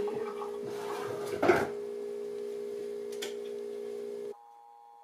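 A steady hum of several held tones runs under the handling of a vanilla extract bottle, with one sharp knock about one and a half seconds in and a faint click a little after three seconds. Near the end the hum switches abruptly to higher tones and the background hiss drops away.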